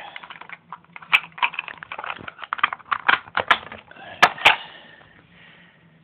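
Keys of a small handheld wireless touchpad keyboard being pressed in quick, irregular plastic clicks. Two sharper clicks come a little past four seconds in, and the clicking dies away about five seconds in.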